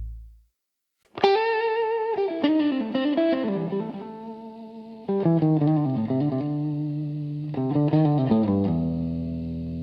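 Music: the previous blues track fades out into a brief silence. A new track then opens on a solo electric guitar with effects, playing slow phrases of bent, wavering notes. Near the end it settles into a held chord over bass.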